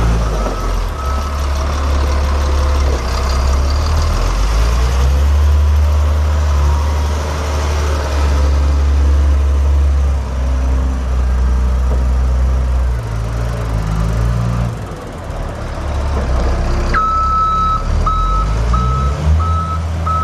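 Volvo A30D articulated haul truck's 9.6 L six-cylinder turbo diesel running under load, its pitch rising and falling as the truck moves. A reversing alarm beeps faintly at first and sounds loud and steady near the end, about one and a half beeps a second.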